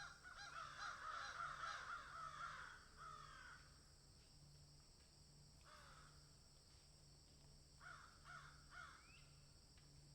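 A group of crows cawing, faint: a dense flurry of overlapping caws for the first few seconds, a single caw around the middle, then three quick caws near the end.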